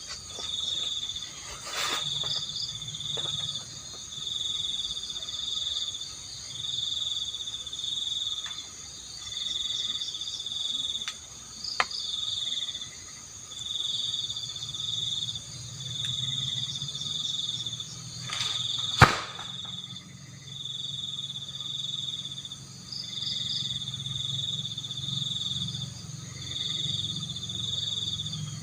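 Night insects chirping in a steady pulse, a burst about every second and a half, over a constant high hiss of more insects. A faint tick about twelve seconds in and a single sharp knock about two-thirds through, the loudest sound.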